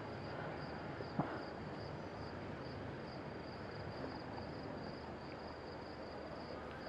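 Crickets chirping steadily in a high, evenly pulsing trill, with one short click about a second in.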